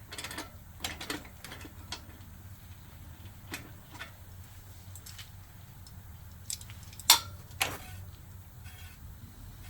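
Scattered metal clicks and knocks of hand tools working the e-bike's front wheel axle and fork dropouts. Two sharp, louder clicks come about seven seconds in, over a steady low hum.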